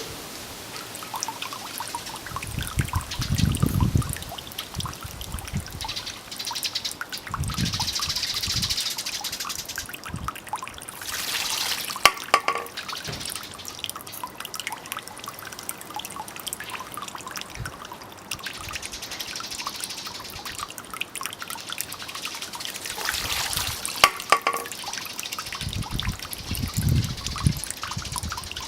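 Water from a bamboo pipe trickling and splashing into a stone basin. A shishi-odoshi (bamboo deer-scarer) tips and its bamboo tube strikes its stone with a sharp clack twice, about twelve seconds apart. A few low rumbles come and go.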